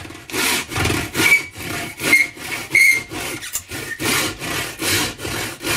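Handsaw cutting through a wooden board with quick back-and-forth strokes, about two a second. The blade gives a brief high squeal on a few strokes in the first half.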